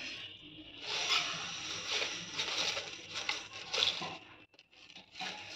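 Granulated sugar poured into a pan, a gritty rustling hiss in several surges that dies away about four seconds in.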